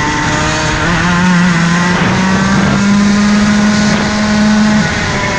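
Rotax Max 125cc two-stroke kart engine heard from the driver's seat, its pitch climbing steadily under acceleration, then falling away near the end as the throttle is lifted.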